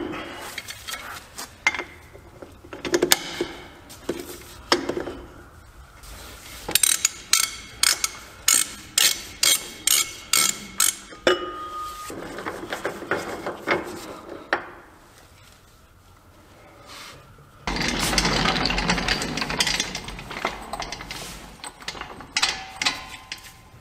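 Hand tools working on a heavy truck's wheel hub: a 4-inch socket fitted over the axle nut and turned off, with metal clinks and a run of sharp clicks about two a second. In the last third comes a few seconds of louder metal rattling and scraping.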